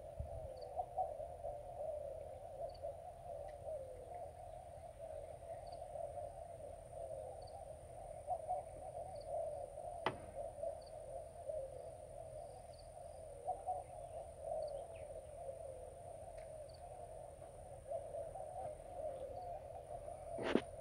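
Steady chorus of wildlife along a river: a dense, unbroken warbling drone with a thin high steady tone above it and a faint chirp every second or two. A single sharp click comes about halfway through, and a few more clicks near the end.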